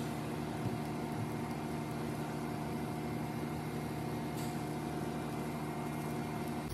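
A steady mechanical hum: a low drone with a few held higher tones over an even background noise, from a machine running without change.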